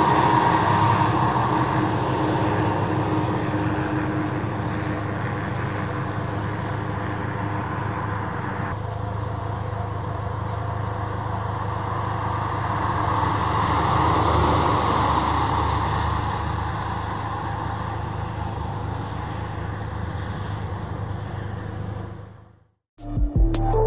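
Fire trucks' engines and tyres running steadily as they drive by and away along a road. A second swell about two-thirds through, as another truck passes. The sound cuts off suddenly near the end, and music begins.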